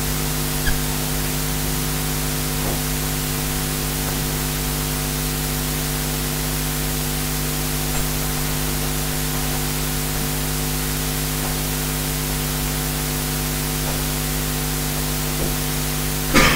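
Steady hiss with a constant low electrical hum: the background noise of the recording and the room, with a few faint ticks.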